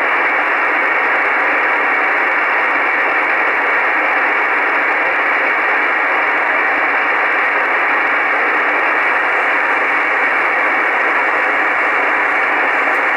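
Steady static hiss from an Icom IC-R8500 shortwave receiver in upper-sideband mode on an empty channel, the band noise heard through its narrow voice-width filter with no signal present.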